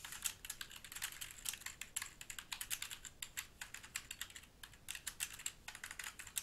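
Typing on a computer keyboard: a quick run of light keystrokes, with a brief pause about two-thirds of the way through.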